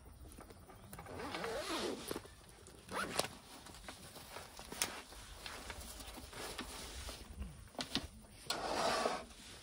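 Zipper on a soft fabric gear case being pulled open in rasping strokes, with a few short clicks and knocks as the case and tools are handled.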